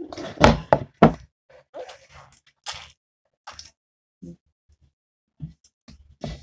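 Two loud thumps about half a second apart near the start, then scattered softer squishes and taps as sticky slime is kneaded and stretched by hand on a desk.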